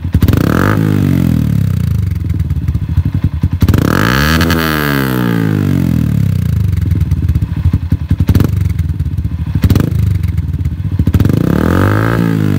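Yamaha Sniper 150's single-cylinder four-stroke engine running through an Akrapovic slip-on exhaust canister. It idles between throttle blips, revving up and back down three times, the biggest rise in the middle, with a couple of sharp cracks in between.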